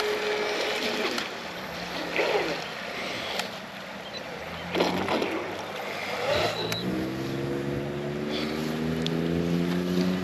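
Battery-powered Traxxas Disruptor RC boat running on the water as it is brought back in. Its motor hum climbs slowly in pitch over the last few seconds, with a few short swishes.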